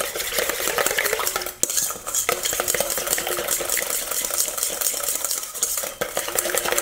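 Wire whisk beating eggs and coconut flour in a stainless steel bowl: a fast, steady run of metallic clicks and scrapes as the wires strike the side of the bowl.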